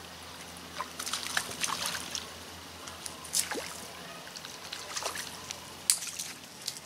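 Small irregular splashes and drips of water in the shallows, starting about a second in: a hooked trout thrashing at the surface as it is reeled in to the shore.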